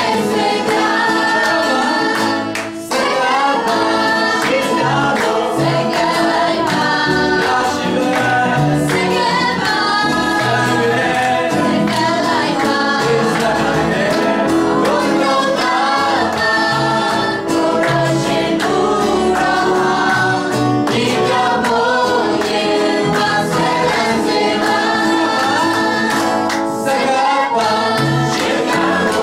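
A mixed group of men and women singing a song together through microphones, accompanied by acoustic guitar.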